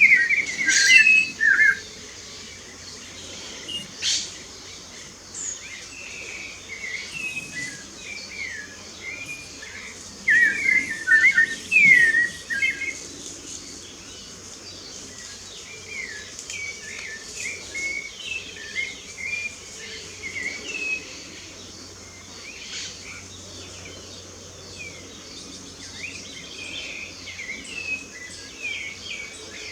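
Songbirds singing, with many short whistled phrases that come thick and loud in the first couple of seconds and again around ten to thirteen seconds in, then sparser and softer. A faint steady high hiss runs underneath.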